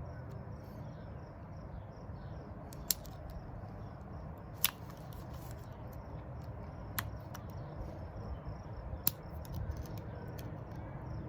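A few sharp, isolated metal clicks spread across several seconds as snap ring pliers are worked against the retaining ring on a CV axle shaft, over a low steady background hum.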